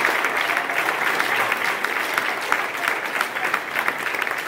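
Audience applauding: many people clapping densely and steadily.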